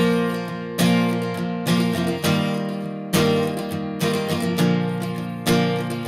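Background music: a strummed acoustic guitar, with a sharp strum about every second that rings out and fades.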